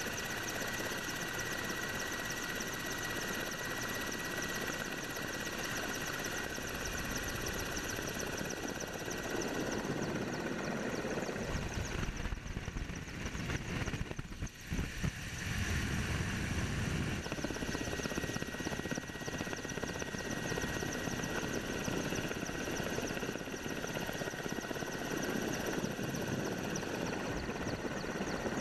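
Aircraft noise recorded on board: helicopter turbine and rotor running steadily with a constant high whine. About halfway through it dips briefly, and the engine and rushing air of a fixed-wing firefighting plane take over, heavier in the low end for a few seconds before settling back to a steady whine.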